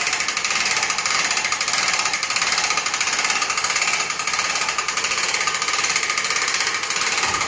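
Electric wire-rope hoist running as it raises the motorcycle lift platform: a steady, fast, dense rattle that does not let up.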